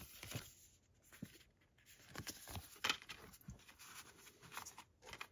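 Faint handling of card and cardboard packaging: scattered light clicks, taps and paper rubs, with a near-quiet gap in the first couple of seconds.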